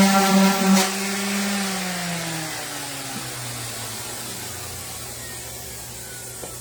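Random orbital sander running with a pulsing hum, then switched off just under a second in with a click. Its motor winds down, the pitch falling and fading over the next few seconds as it coasts to a stop.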